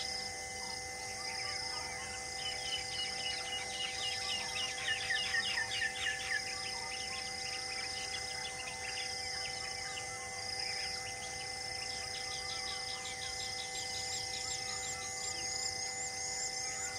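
Birds calling in rapid trilling runs, strongest about four to six seconds in and again later, over a high chirp that repeats about once a second and a steady droning hum underneath.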